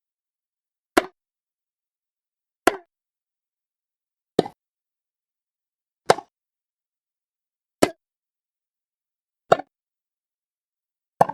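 Tennis ball hits repeating evenly, seven sharp pops about every 1.7 seconds, each with a quick softer after-tap, with silence between them.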